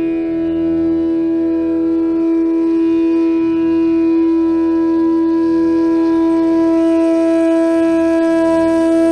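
Instrumental background music holding one long, steady note, with a faint low drone beneath it.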